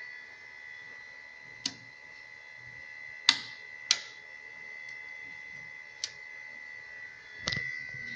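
Steady high electrical whine from the powered servo drive and motor rig, with five sharp clicks spread through it, the loudest about three seconds in.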